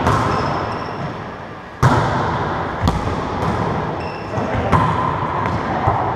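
Wallyball being struck by players' hands and bouncing off the walls of an enclosed racquetball court: a string of sharp slaps and thuds with echo, the loudest about two seconds in.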